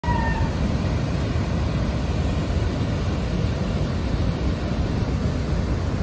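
Floodwater rushing over a concrete overflow weir and churning white below it: a steady, deep rush that does not let up.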